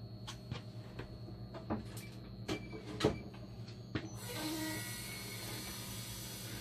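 Small clicks and knocks of parts and fittings being handled inside an opened dialysis machine, over a steady low hum. About four seconds in, a steady hiss starts and keeps going.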